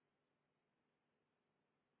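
Near silence: only faint steady background hiss.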